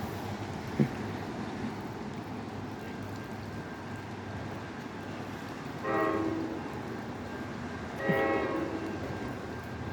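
Locomotive air horn sounding two short blasts about two seconds apart, with a third starting at the very end, over a steady hiss of rain.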